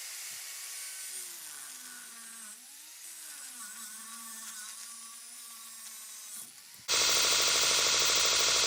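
Small electric power tool running, its motor pitch sagging and recovering as it takes load. About seven seconds in, a much louder, steady whirring and grinding tool noise starts abruptly.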